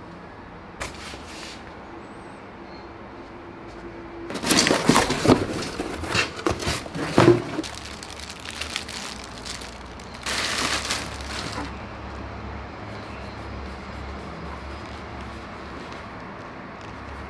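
Clear plastic wrapping crinkling as a bike saddle is handled and unwrapped, in two bouts: a longer one starting about four seconds in and a shorter one around ten seconds in.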